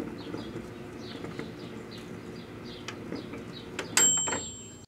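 Microwave oven running with a steady hum while a floppy disk burns inside, crackling and popping throughout. About four seconds in there is a sudden loud click followed by a short high beep as the oven is stopped.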